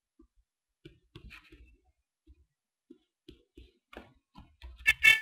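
Scattered soft clicks and taps from a computer mouse as menus are opened and closed. A brief, louder sound with a pitched ring comes near the end.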